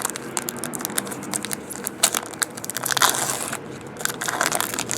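Trading cards and their pack wrappers being handled, many quick rustles and clicks as the cards are shuffled through one by one.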